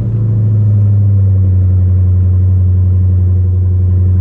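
Dodge Challenger's Hemi V8 idling steadily just after start-up, a low, even rumble with no change in engine speed.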